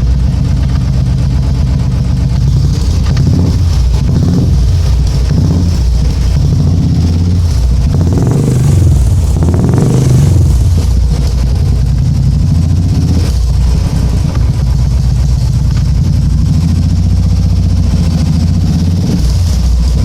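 Royal Enfield motorcycle engine running through an aftermarket Shark silencer, with a steady low exhaust thump, revved up a little around the middle.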